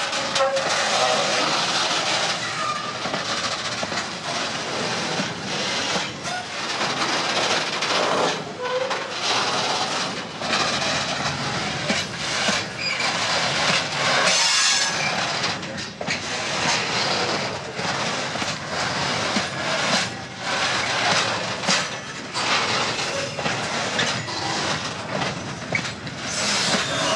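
Freight train of covered sliding-wall wagons rolling past close by, its wheels clattering steadily over the rail joints. There is a brief high hiss about halfway through.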